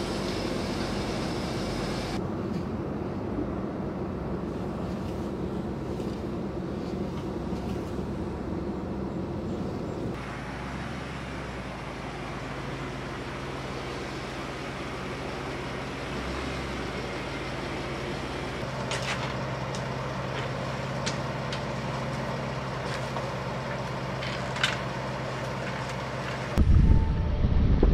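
Pickup truck engine idling steadily, with a few sharp clinks near the end, then wind buffeting the microphone in the last second or so as the truck pulls away.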